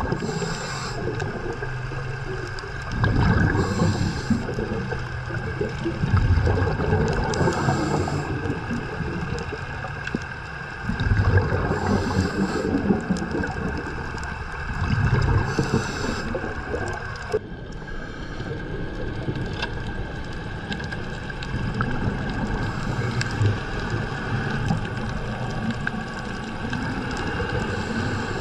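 Scuba diver breathing through a regulator, heard underwater: a short hiss on each inhale alternating with a louder bubbling rush on each exhale, roughly every four seconds. A steady high hum runs underneath.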